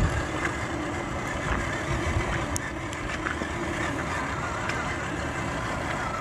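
Redcat Gen 8 RC crawler's electric motor and drivetrain whining steadily as it drives through shallow floodwater, with water splashing under its tyres.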